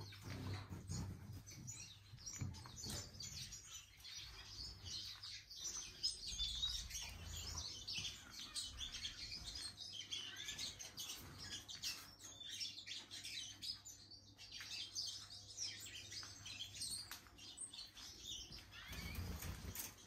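Many small aviary finches chirping and twittering at once, short high calls overlapping throughout, over a low steady hum.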